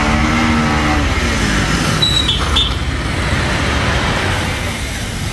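A motor vehicle's engine running, its pitch falling as it slows during the first two seconds. A brief high squeal comes about two seconds in, then a steady rumble.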